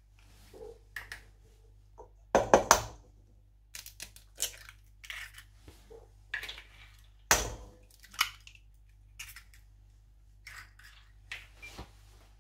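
Eggs being cracked on a stainless steel bowl and broken open over minced beef: sharp knocks of shell on metal, loudest a little over two seconds in and again about seven seconds in, with smaller clicks and crunches of eggshell between them.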